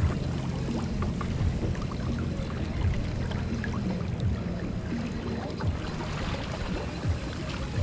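Water rushing and splashing along a Finn dinghy's hull as it sails, over a steady low rumble. A few sharper slaps of water against the hull stand out, about a second and a half apart at first and once more near the end.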